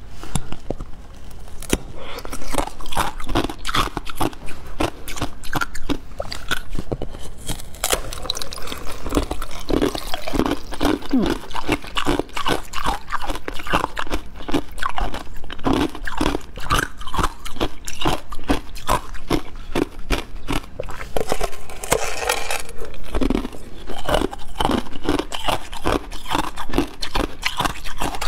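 Crunching bites and chewing of a hard, brittle green pineapple-shaped treat: repeated sharp cracks as pieces break off, then crunching as they are chewed.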